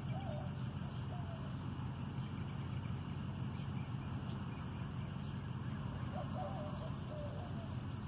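Steady low outdoor rumble, with two short, faint wavering calls, one near the start and one about six seconds in.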